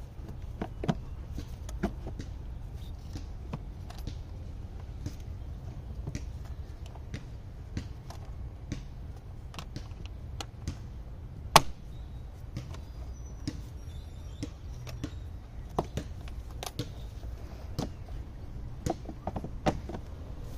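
Irregular plastic clicks and knocks as the air filter box and intake duct are fitted back together by hand, with one sharper knock about halfway through, over a low steady background rumble.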